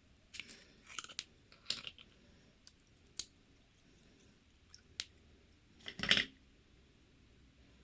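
Slime being handled, giving a scatter of short crackles and pops. The longest and loudest crackle comes about six seconds in.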